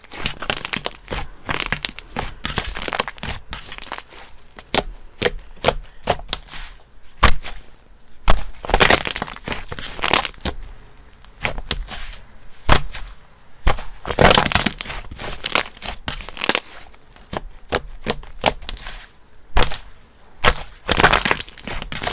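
Slime being squeezed and pressed by hand, giving sharp crackling pops and clicks, with denser bursts of crackles every few seconds.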